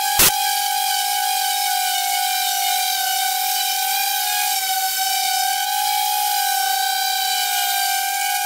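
Chainsaw running at full throttle while cutting through a log, a loud, steady, high whine that wavers slightly under load. A single sharp click comes just after the start.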